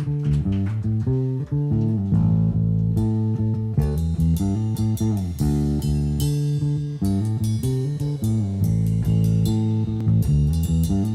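Live rock band playing an instrumental intro: a bass and guitar riff of heavy low notes, with sharp percussive hits joining about three seconds in.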